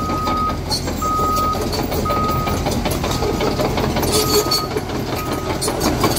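Caterpillar crawler dozer's diesel engine running steadily while its reversing alarm beeps about once a second, the beeps growing fainter in the second half, over a clatter of the steel tracks working through dirt.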